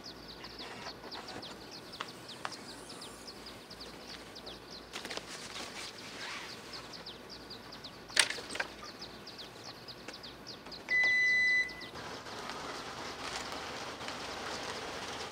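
Gear being handled and loaded into a minivan's open rear hatch: scattered clicks and knocks, with one sharp knock about eight seconds in. A short electronic beep sounds about eleven seconds in, and a steadier rushing noise follows, while faint repeated chirps run in the background.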